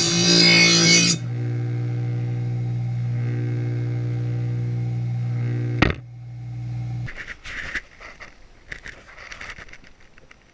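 Electric blade grinder on a lawn mower blade: the grinding wheel scraping the steel for about the first second, then the motor running on its own with a steady hum. A sharp click about six seconds in, the hum stops a second later, then light clicks and knocks of handling.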